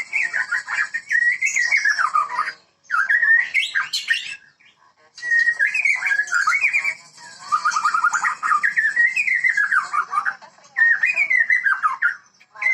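White-rumped shama (murai batu, Medan type) singing loud, varied whistled phrases that swoop up and down, with brief pauses about two and a half and four and a half seconds in.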